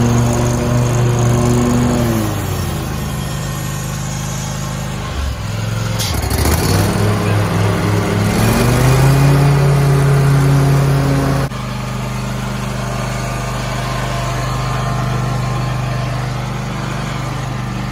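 Wright Stander X stand-on mower's Kawasaki FX730V V-twin engine running. Its pitch drops about two seconds in, dips and climbs again between six and nine seconds, then holds steady, with an abrupt change about eleven seconds in.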